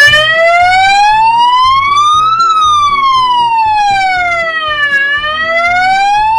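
Three-tone 12 V electronic siren horn sounding its wail tone. It cuts in suddenly, rises in pitch for about two and a half seconds, falls for about two and a half seconds, then rises again.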